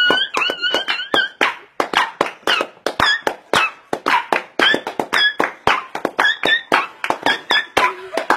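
A dog yipping and whining in short, high-pitched cries, with a longer whine at the start, over quick rhythmic clapping of about four to five claps a second.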